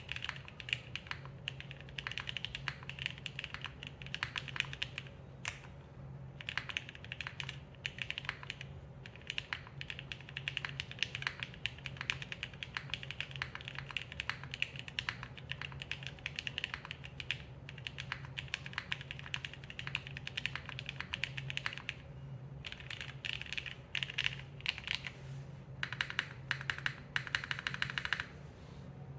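Fast, continuous typing on a Neo80 mechanical keyboard with vintage Cherry MX Black linear switches on a carbon fibre plate, no foam, and GMK keycaps, with brief pauses about 6 s, 9 s and 22 s in.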